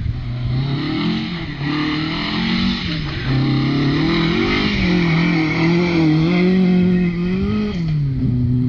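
Mark 2 Ford Escort rally car's engine revving hard, its pitch rising and falling several times as the car is driven. About eight seconds in it drops and settles to a steady lower note.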